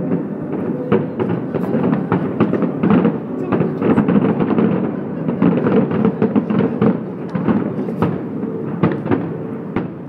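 Aerial fireworks display: shells bursting in a rapid, continuous run of bangs over a low rumble, thinning out near the end.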